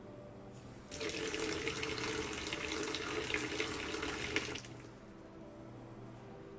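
Tap water running into a basin in a stainless-steel sink, splashing as it fills; the tap comes on about a second in and is shut off about two seconds before the end, leaving a faint steady hum.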